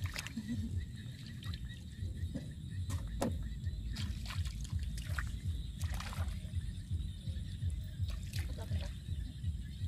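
Irregular splashing and sloshing in a shallow muddy puddle as small fish are grabbed by hand and flop in the water, over a steady low rumble.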